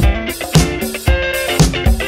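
Upbeat pop music with guitar and a steady drum beat, about two beats a second.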